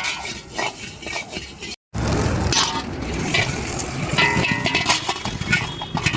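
Fried rice being cooked on a street stall: a metal spatula clinking and scraping against the pan over sizzling. Just under two seconds in the sound drops out for a moment, then resumes with a run of sharp metal clinks.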